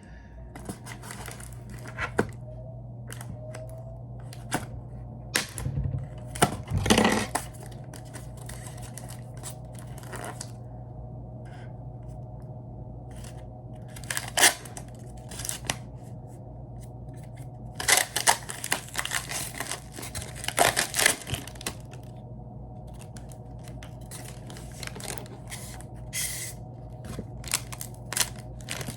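Plastic packaging being torn open and handled: irregular tearing and rustling, busiest about two-thirds of the way through, over a steady low hum.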